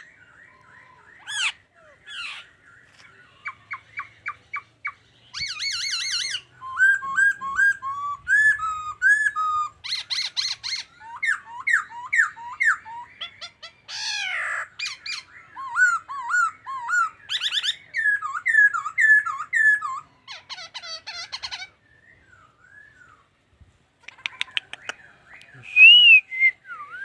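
A songbird singing a long, varied song of clear whistled notes, many of them short down-slurred notes repeated several times in a row, broken by a short pause about two-thirds of the way through.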